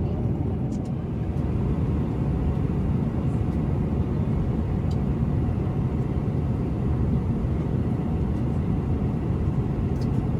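Steady low rumble of a Boeing 747-400's cabin in cruise flight, with a few faint light clicks.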